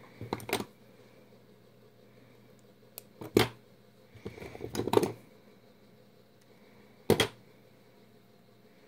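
Wire-jewelry hand tools and wire being handled: four short bursts of clicks and knocks, as steel flush cutters are set down on the work mat and picked up again. A faint steady hum runs beneath.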